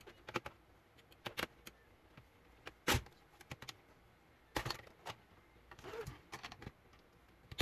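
Sharp clicks and knocks of a plastic laptop case being pried apart and handled, with its palmrest snap clips releasing. The loudest knock comes about three seconds in, and another past four and a half seconds.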